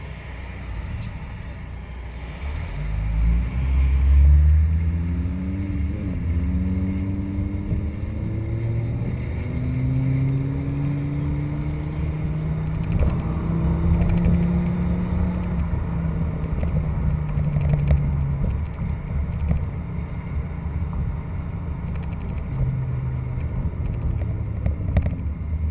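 Car engine and exhaust accelerating hard through the gears: the pitch climbs, drops back at each upshift, climbs again several times, then holds steady at cruising speed.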